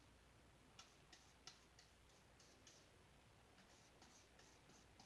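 Near silence: faint room hiss with a dozen or so light, faint ticks spaced unevenly.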